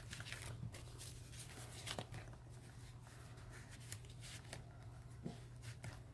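Faint rustling and soft clicks of cardstock pages and pull-out tags being handled and slid in a handmade paper mini album.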